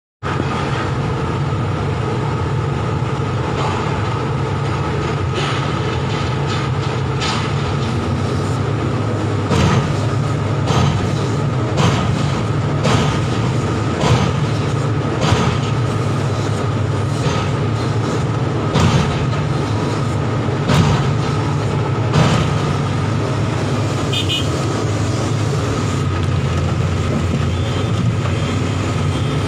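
Heavy diesel machinery running steadily: a low rumble with a faint constant whine, broken by irregular knocks and clatters every second or two.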